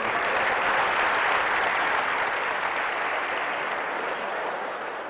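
Audience applauding, loudest about a second in and slowly fading.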